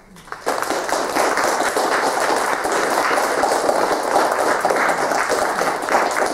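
Audience applauding, breaking out about half a second in and going on steadily.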